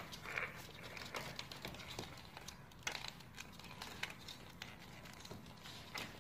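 Shiba Inu puppies scuffling over toys on a hardwood floor: scattered, irregular clicks and scrapes of claws and plastic toys on the boards.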